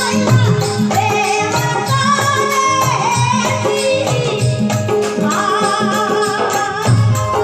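Rajasthani folk devotional bhajan music: a steady drum beat under a wavering melody line.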